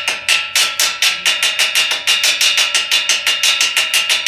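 Rapid hammer strikes on steel, about five a second, each with a bright metallic ring: chipping the slag off a freshly laid weld bead.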